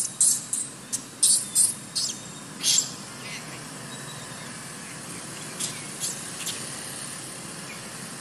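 Baby macaque giving a quick run of short, high-pitched squeaks through the first three seconds, then a few fainter squeaks about six seconds in.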